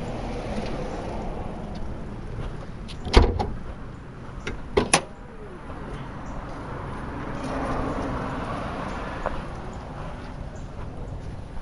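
Low, steady rumble of a running vehicle, with one loud thump about three seconds in and two sharp clicks a second and a half later.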